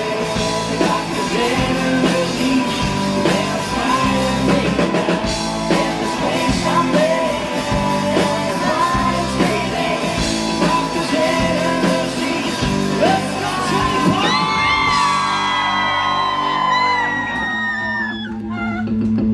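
Rock band playing live, with sung and yelled vocals over guitar, bass and drums. From about two-thirds of the way in a long high note is held with wavering, slowly falling bends, and the music drops back briefly near the end.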